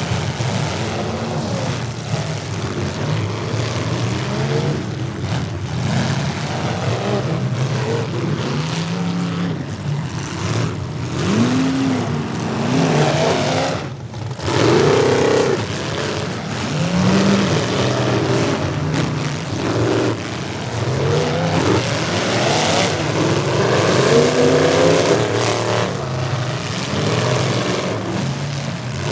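Several demolition derby cars' engines revving hard at once, their pitches rising and falling over one another as the cars accelerate and back up, with a brief lull about halfway through.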